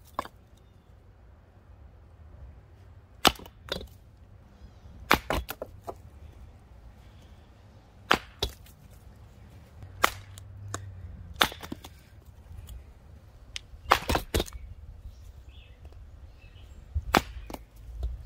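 Hatchet chopping into wood on a stump chopping block: a sharp knock every few seconds, often two in quick succession.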